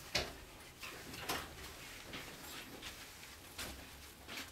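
A few scattered footsteps and soft knocks, about four in all, with faint hiss between them.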